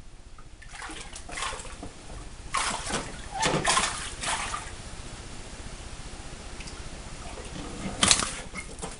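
Aquarium water splashing and sloshing as a fish net is lifted up through the tank and out of the water, in several bursts over the first few seconds, with a sharper splash about eight seconds in.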